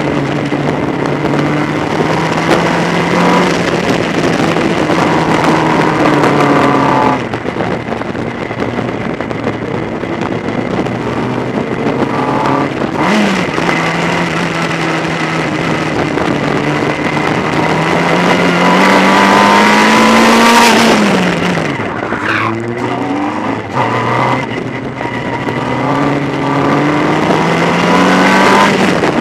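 Formula Ford racing car's engine heard from onboard at racing speed, its revs climbing and falling with gear changes. The pitch drops about a quarter of the way in, rises again, then falls sharply about two-thirds of the way through before climbing once more.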